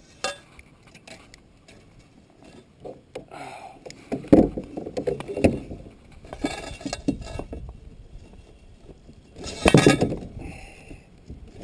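Clinks, rattles and knocks of fishing gear against the hull of a small boat as a hooked bass is netted, with two loud thumps about four seconds in and near the end.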